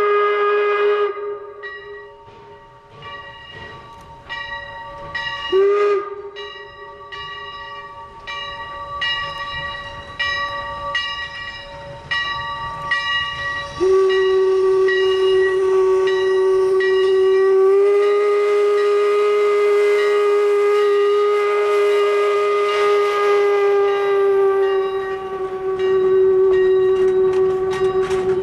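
Steam whistle of the Leviathan 4-4-0 steam locomotive, sounding several tones at once: a blast that ends about a second in, a short toot near six seconds, then a long held blast from about halfway through to the end. Between the blasts the locomotive's exhaust beats about twice a second.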